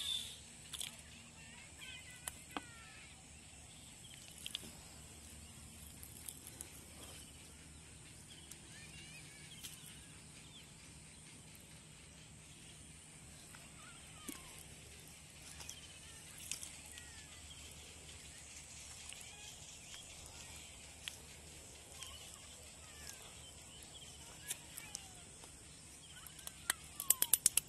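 Quiet open-air ambience with faint, scattered bird chirps and now and then a light click or tap. A quick run of clicks comes near the end.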